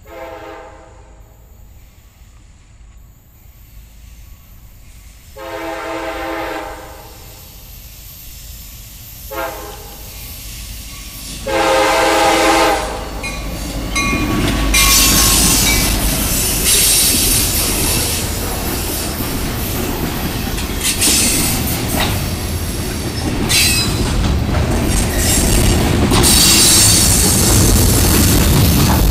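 CSX diesel freight locomotive blowing its horn in the grade-crossing pattern (long, long, short, long) as it approaches. The locomotive and its freight cars then pass close by in a loud, steady rumble, with wheels squealing at times.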